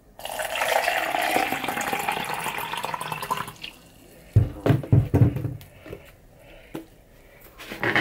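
Water poured into a plastic shaker bottle with a wire whisk spring, a steady rush lasting about three seconds. About a second after it stops come several heavy low thumps.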